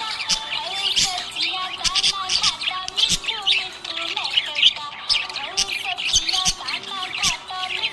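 Budgerigars chirping and warbling without pause, a busy chatter of quick high chirps over lower wandering warbles.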